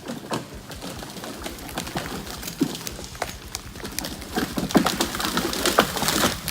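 Irregular sharp cracks and snaps of breaking wood and branches as a hung-up dead tree is brought down through the growth, growing denser and louder over the last two seconds or so.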